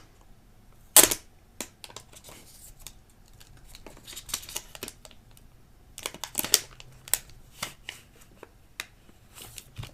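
Thin plastic wrapping being peeled and torn off a laptop charging brick, crinkling and crackling in irregular bursts, with one sharp snap about a second in.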